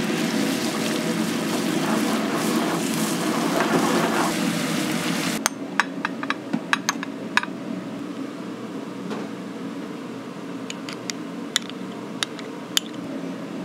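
Tomato sauce sizzling in a nonstick frying pan over a gas flame, an even hiss over a steady low hum that cuts off about five seconds in. Then a metal spoon clinks sharply against a bowl several times in quick succession as rice is scooped onto a plate. A few lighter clinks of a spoon on a glass bowl follow near the end.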